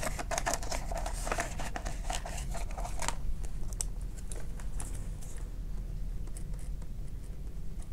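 Paper bills being handled and slid into a binder's plastic pocket, with a dense run of crisp rustles and small clicks for about three seconds. It then settles to faint scattered ticks as a pen is picked up and used to write.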